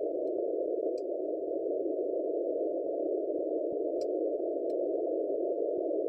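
Shortwave receiver static heard through a narrow 500 Hz CW filter on a web SDR: a steady band of hiss with no Morse signal standing out. The 30-watt CW test transmission has sunk into the noise floor. A few faint clicks.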